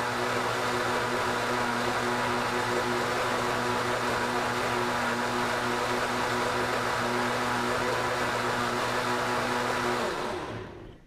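Blendtec Designer 725 blender running steadily at high speed through the last seconds of its 90-second soup cycle, blending a green pea soup. About ten seconds in the cycle ends and the motor winds down with a falling pitch.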